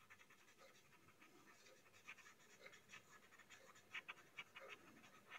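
Faint scratching of a graphite pencil shading on paper in short back-and-forth strokes, a little more distinct near the end.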